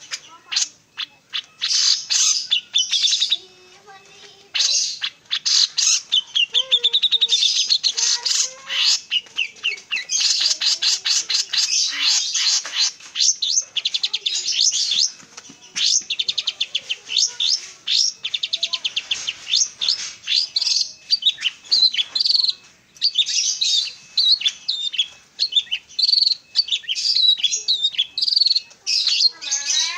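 A songbird singing almost without pause: fast runs of high chirps, trills and quickly repeated notes, broken by a short gap a few seconds in.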